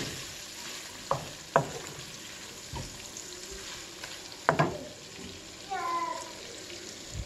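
Shrimp and scrambled egg sizzling in a hot frying pan, with a wooden spatula scraping and knocking against the pan a few times.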